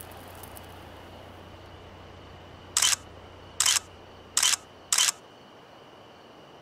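Four camera shutter clicks, each a short sharp snap, about three quarters of a second apart, over a low steady hum that drops out right after the last one.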